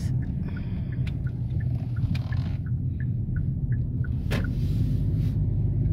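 Car turning at low speed, heard from inside the cabin: a steady low engine and tyre rumble, with the turn signal ticking about three times a second until about four seconds in. A single sharp knock comes a little after four seconds.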